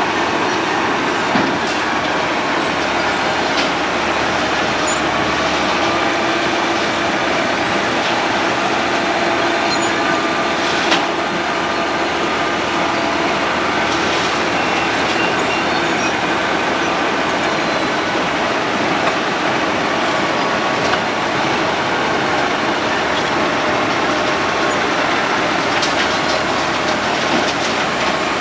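Road planer (cold milling machine) running steadily as it mills the road surface, a constant grinding noise with a few sharp knocks.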